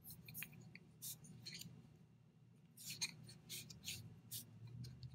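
Wooden double-pointed knitting needles faintly clicking and scraping against each other as stitches of thick yarn are knitted: scattered light taps, coming more often in the second half.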